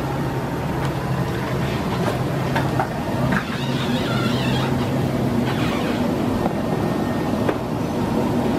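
Steady airliner cabin noise on an Airbus A330-300 parked at the gate: ventilation air rushing with a low hum underneath. A few knocks and clicks come around three seconds in.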